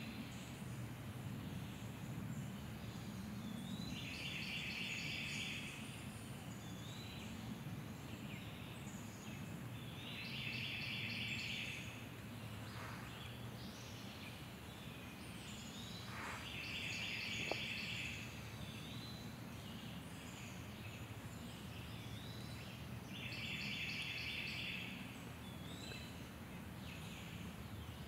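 Woodland birdsong: one bird repeats a short trilled song phrase about every six seconds, with other birds' brief high calls in between, over a low steady background rumble.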